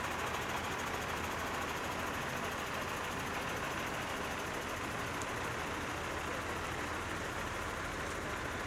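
Truck engines running steadily as a slow convoy of trucks, including a flatbed tow truck and a heavy wrecker, rolls past at walking pace.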